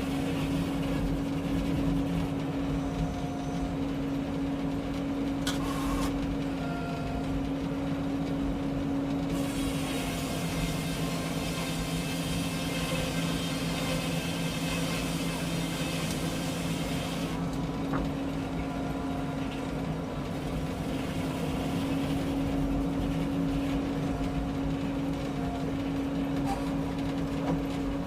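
Frick 01-C circular sawmill running with a steady hum. Around the middle, a brighter hiss comes in for about eight seconds as the blade cuts through a white pine log, then drops back to the plain running hum.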